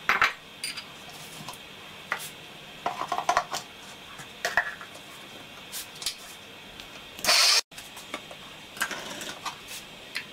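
Clicks and knocks of a steel mixer-grinder jar and lid being handled and set on the base, then a short loud burst of the Sahara mixer grinder's motor about seven seconds in that cuts off abruptly.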